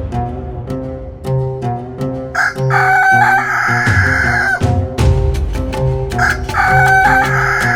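A rooster crowing twice over music with a bass line: one crow about two and a half seconds in and another near the end.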